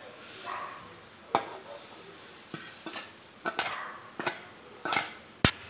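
A steel ladle scraping and knocking against a steel pan while roasted vermicelli is tipped into a pot of boiled milk. The sound is a string of metal clinks and scrapes, the sharpest one near the end.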